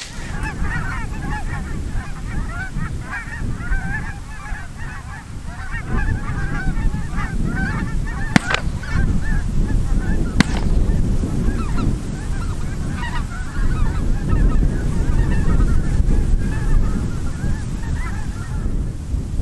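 A flock of wild geese calling continuously as they fly overhead, a dense chatter of many overlapping honks, over wind rumbling on the microphone. Two sharp clicks come about 8 and 10 seconds in.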